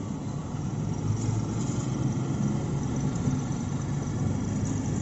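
Steady low rumble of a car's engine and tyres, heard from inside the moving cab.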